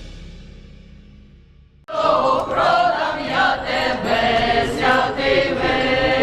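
Music fading out, then an abrupt cut about two seconds in to a choir of voices singing.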